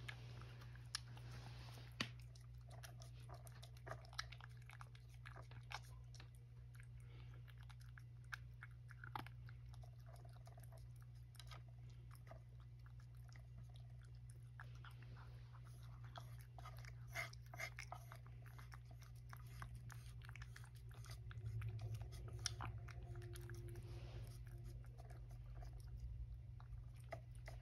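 Cat eating wet food from a tray: soft, irregular licking and chewing clicks, a few a little louder than the rest.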